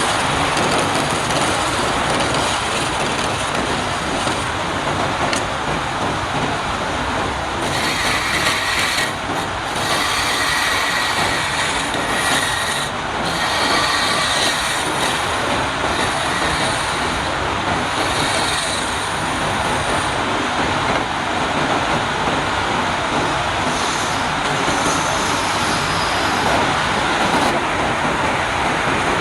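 Wood lathe running with a turning tool cutting the spinning wood: a steady noise throughout, with a higher-pitched ringing that comes and goes between about 8 and 19 seconds in.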